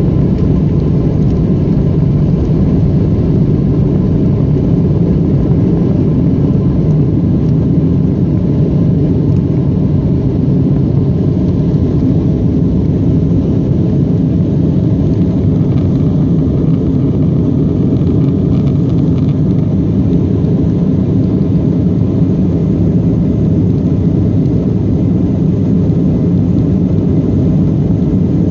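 Embraer E175 jet's twin GE CF34-8E turbofans at takeoff thrust, heard inside the cabin over the wing: a steady, loud, low engine and airflow noise through the end of the takeoff roll, liftoff and initial climb.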